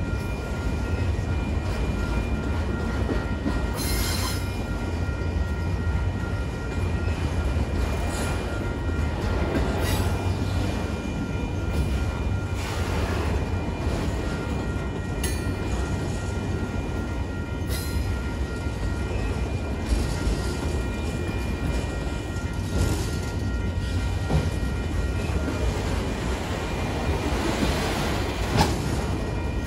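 Union Pacific freight train's autorack cars rolling past, a steady rumble of steel wheels on the rails broken by several sharp clanks.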